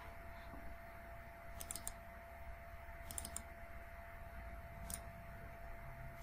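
Faint computer mouse clicks, a few short clicks in small groups with pauses between, over a faint steady tone and low hum.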